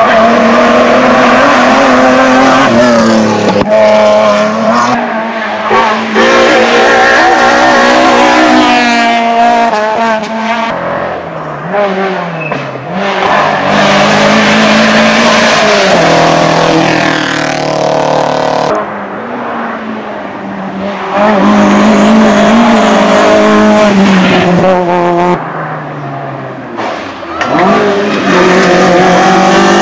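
Rally cars running hard through a tight hairpin one after another, engine notes climbing and dropping repeatedly with gear changes as each brakes, turns and accelerates away. The sound falls back briefly between cars.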